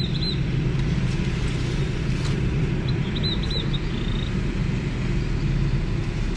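Car driving along, a steady low engine and road rumble.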